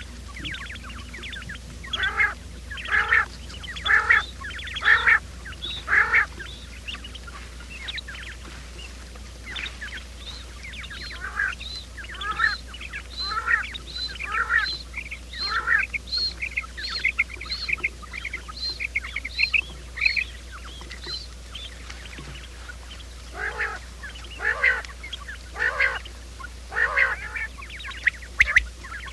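Quail calling repeatedly, a lure call for trapping. Short calls come about once a second at first, then a faster run of higher, sharper notes about two a second, then the slower calls again near the end, over a faint steady low hum.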